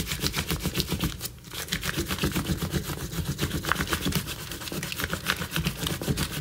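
Wax crayon rubbed quickly back and forth over paper laid on a leaf, making a leaf rubbing: a fast, even scratching of strokes, with a brief pause about a second in.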